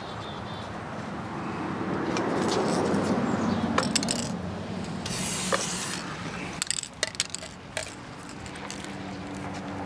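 Aerosol can of Corrosion Block anti-corrosion spray giving a short hissing burst about five seconds in, with sharp clicks and taps of the cans being handled around it.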